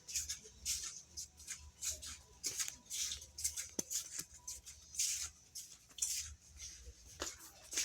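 Irregular rustling and scuffing, a few soft scrapes a second, over a steady low hum.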